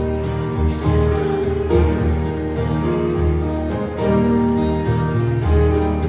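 Instrumental music with guitar, sustained notes over a steady bass pulse.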